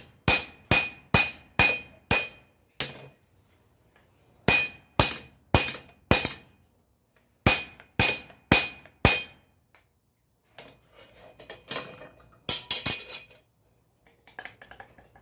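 Hammer striking metal with a bright ring, in three quick runs of about seven, five and four blows, then a denser clatter of metal near the end: driving a metal wedge further into a loose hammer head to tighten it.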